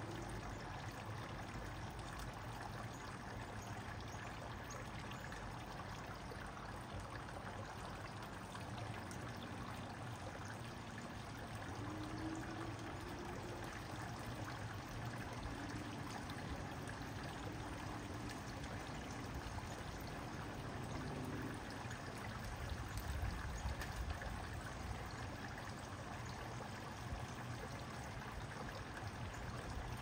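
Running water trickling and splashing steadily without a break.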